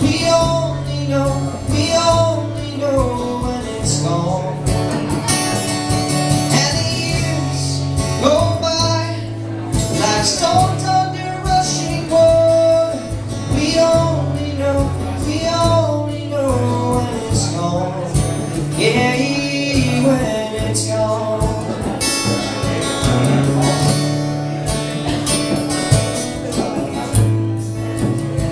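Acoustic guitar music with a melody line above it, played continuously through the passage.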